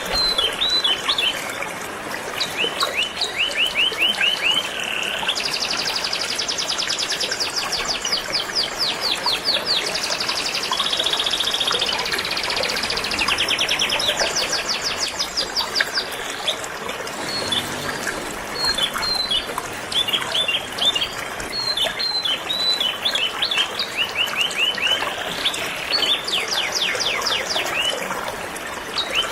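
Canary singing in long runs of rapid repeated notes and trills, broken by short chirps, over the steady rush of flowing river water.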